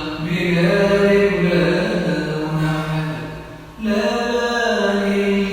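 A man singing a Tunisian folk song in long drawn-out notes that shift slowly in pitch, with a short pause a little past three seconds in before another long note.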